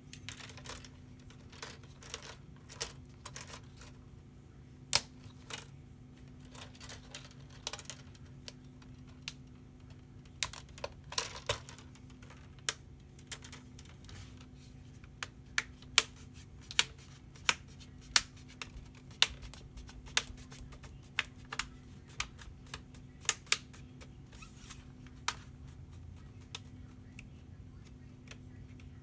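Plastic screen bezel of an ASUS VivoBook F510U laptop being pressed back onto the display lid, its clips snapping into place as a string of irregular sharp clicks, several of them louder in the second half.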